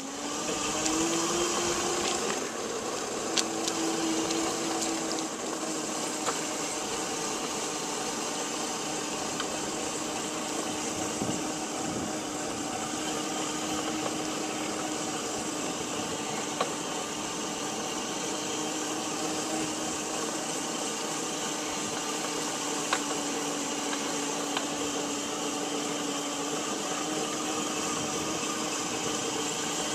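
Steady motor hum with a hiss and one held tone that wavers slightly in pitch.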